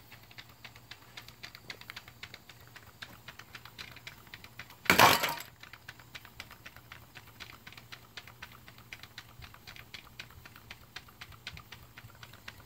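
Model Williamson Brothers vertical steam engine running quietly on live steam, with a rapid, regular light ticking from its moving parts. About five seconds in, a brief, much louder rush of noise.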